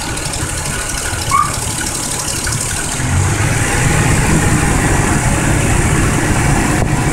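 Toyota 1JZ-GE straight-six engine idling, with a brief high squeak about a second in. The engine sound grows louder and fuller about three seconds in.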